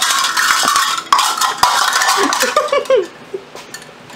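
Kitchen utensils and dishes clattering and clinking, with a few sharp knocks, going quieter near the end.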